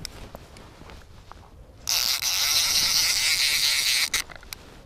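Fly reel's click ratchet buzzing steadily for about two seconds, starting a couple of seconds in, as a hooked trout runs and pulls line off the reel.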